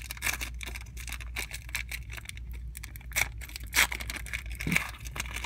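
Foil trading-card pack wrapper being torn open and crinkled by hand: a dense run of short crackles, with a few sharper, louder ones past the middle.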